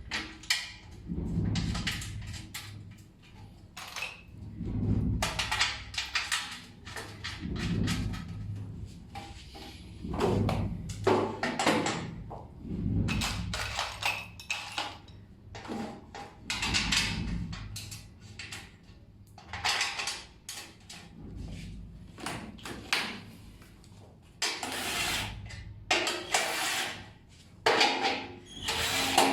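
Irregular clunks, knocks and scraping of metal and wood parts being handled and fitted together while an industrial sewing machine table and stand are assembled.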